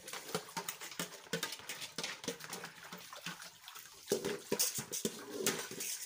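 Steel plates and pots clinking and knocking as they are washed by hand in a tub of water, with some splashing. In the second half a denser stretch of pitched, whine-like sound comes in over the clatter.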